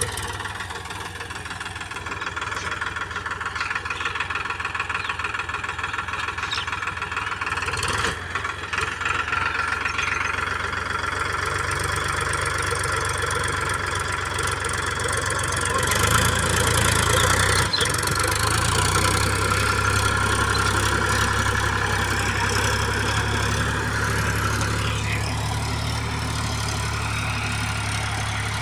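Powertrac tractor's diesel engine running steadily under load while it drives a rear-mounted rotavator through the soil, the drone swelling a little past the middle.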